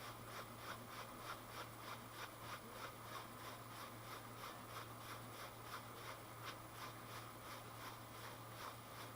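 Rotary table being turned slowly by hand while a part is indicated in: a faint, regular scraping tick about three times a second, over a steady low hum.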